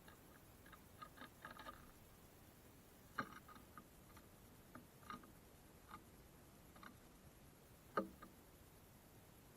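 Small birds pecking and landing at a bird feeder: scattered, irregular light taps and clicks, with two sharper knocks about three seconds in and near the end, over a near-silent background.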